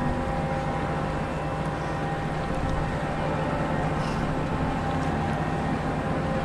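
Fishing trawler's diesel engine running steadily as the boat motors past: a constant drone with a few held tones in it.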